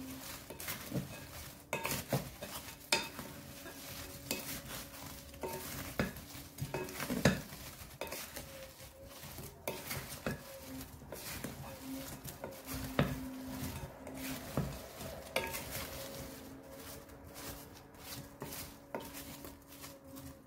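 Wooden spatula stirring seasoned fried potato chunks in a glass bowl: irregular knocks and scrapes of wood on glass, with the potatoes tumbling. A steady hum runs underneath.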